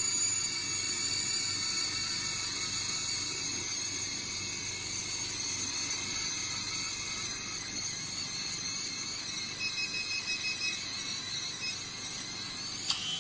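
Body handle of a vacuum roller slimming machine running with its suction on: a steady high-pitched whine made of several tones over a low hum. A sharp click comes near the end, and the whine changes.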